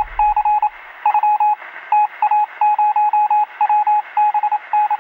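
Morse-code style beeping: a single steady tone keyed on and off in irregular groups of short and longer beeps over a hiss of radio static, with a narrow, radio-like sound.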